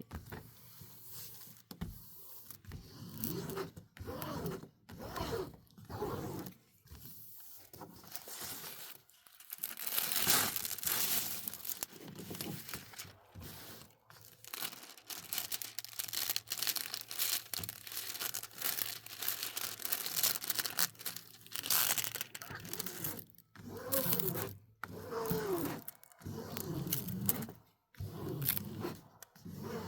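Crinkly plastic packaging of a diamond painting kit being handled and pulled open, rustling in irregular bursts with a longer stretch of crinkling about ten seconds in.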